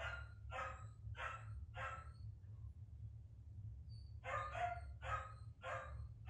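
Puppy barking in a tantrum: a run of sharp barks about twice a second, a pause of roughly two seconds, then another run of barks.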